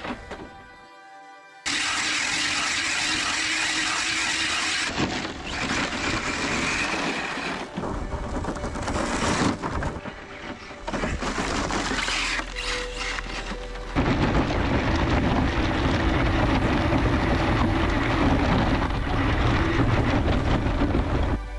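Background music over a 1/8 scale Hobao Hyper GT RC rally car driving on loose dirt and gravel. The car's sound changes abruptly several times, as at cuts between shots.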